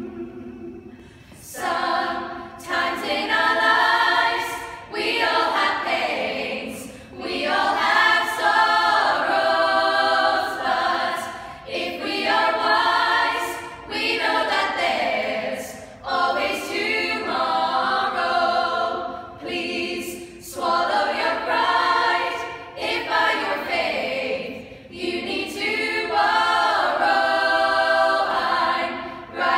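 Small women's choir singing a cappella, several voices together with no instruments. The singing comes in phrases a few seconds long with short breaks between them, and begins about a second and a half in.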